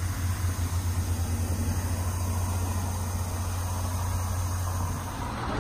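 VIA Rail 'Canadian' diesel train idling at the platform: a steady, low throbbing hum over a light hiss, fading about five seconds in.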